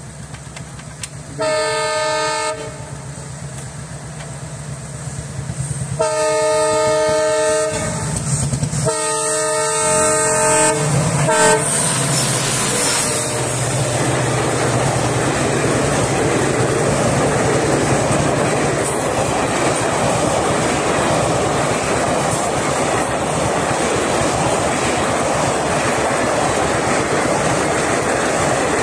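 WDP4D diesel locomotive sounding its horn in three long blasts and a short toot as it approaches, its engine drone building. Then the coaches rattle across the railway bridge in a steady clickety-clack to the end.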